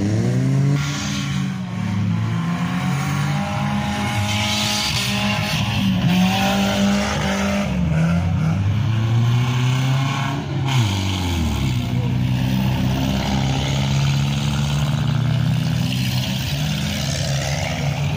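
Several demolition derby cars' engines running hard together, revving up and dropping back again and again so that their pitches rise and fall over one another.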